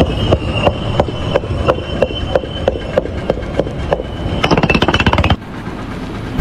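Regular knocking, about three knocks a second, over a steady high whine, breaking into a fast rattle near the end.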